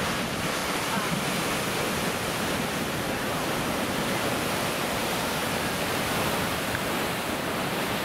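Heavy ocean surf breaking over coastal rocks: a steady rush of crashing waves and churning white water.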